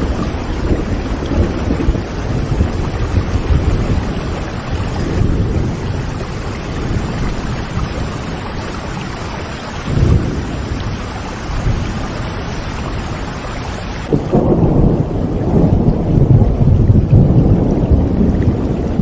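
Steady heavy rain with rolling thunder. A low rumble swells about ten seconds in, and a longer, louder rumble builds near the end.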